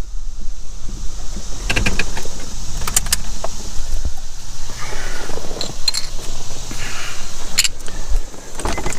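Keys jangling and a handful of sharp clicks and knocks, over a low steady rumble, while a vehicle is parked and the driver gets out.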